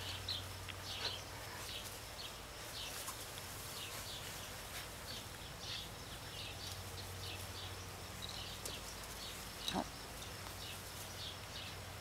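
Faint, short, high-pitched animal chirps repeating all through, over a steady low hum, with one brief lower call about ten seconds in.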